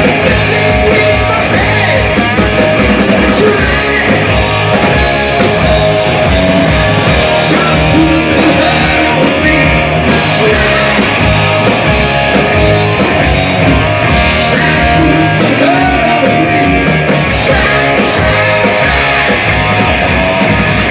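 Live rock band playing loudly: lead vocals over electric guitars, bass guitar and a drum kit, with several sharp crashes from the drums.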